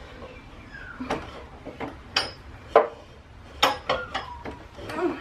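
Irregular sharp metallic clinks and clanks, about seven in a few seconds: hand tools and parts knocking against metal while a serpentine belt is worked back onto the pulleys of a Ford 6.0 Powerstroke diesel engine. There are a few short squeaks in between.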